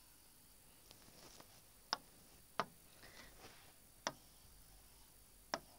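Pen tip tapping and sliding on a writing board as a diagram is drawn: four sharp taps at uneven spacing, with fainter scratchy strokes between them.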